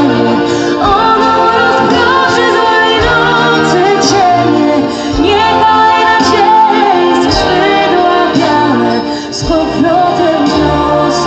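A woman singing into a microphone with long held notes, backed by a live symphony orchestra with strings.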